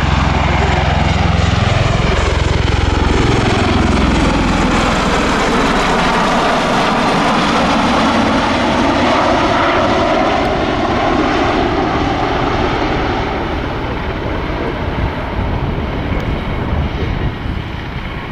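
MV-22 Osprey tiltrotor passing overhead in helicopter-style flight with its proprotors tilted up. The deep beat of the rotors drops in pitch in the first few seconds as it goes by, then gives way to a steady roar of rotors and turboshaft engines that fades toward the end.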